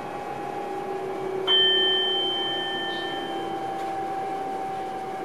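Inside an electric train's driver's cab, a steady whine from the running train, sinking slightly in pitch. About one and a half seconds in, a single bell-like chime sounds and fades away over about two seconds.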